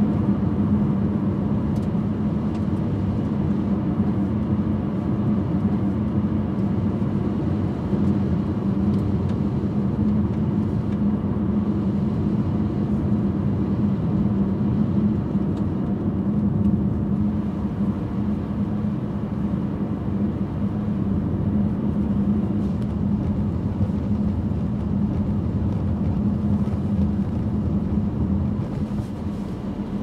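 A car driving at a steady speed: engine and tyre noise on the road make an even drone with a steady low hum.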